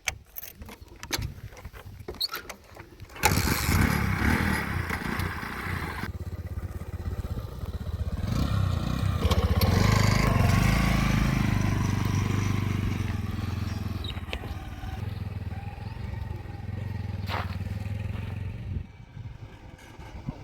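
A heavy vehicle's diesel engine comes in suddenly about three seconds in, after some clicks and rattles. It revs up, then runs steadily and eases off near the end.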